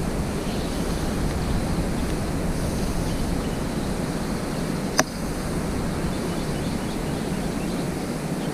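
Steady outdoor background noise with a low rumble, and a single sharp click about five seconds in.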